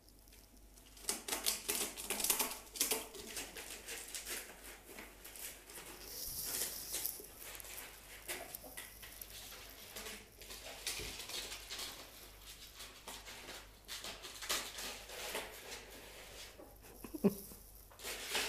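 Pet ferrets scampering and tussling on a shaggy rug and crawling through flexible corrugated plastic tubes: an irregular run of quick pattering, scrabbling and rustling that starts about a second in.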